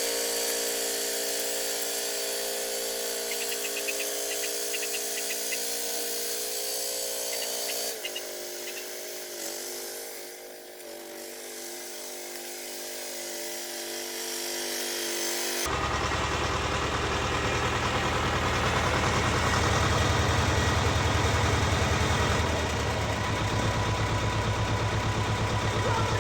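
Small petrol engine of a walk-behind motor tiller running steadily as it works the soil. Its note drops about a third of the way through, and about two-thirds through the sound changes suddenly to a louder, lower rumble.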